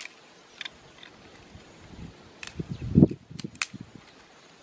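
Dry sticks snapping and knocking as they are broken and pushed under a small wood fire: a few sharp cracks, with a dull knock about three seconds in the loudest.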